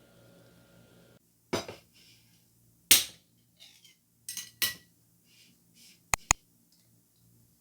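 Household objects being handled, making a series of separate sharp knocks and clinks over a faint hum, including two quick clicks in a row about six seconds in.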